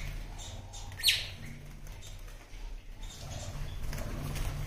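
Lovebirds chirping in an aviary colony, with one sharp, falling chirp about a second in and fainter chirps scattered through. A low steady hum runs underneath.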